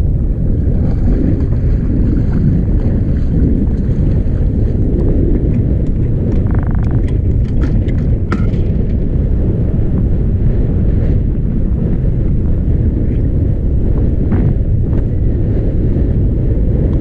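Bass boat running across the water with heavy wind buffeting the microphone: a steady, loud low rumble.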